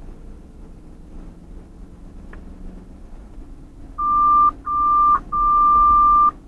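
Two-way radio alert tone: three beeps at one steady pitch, two short then one long, starting about four seconds in, over the low hum of a vehicle driving on the highway.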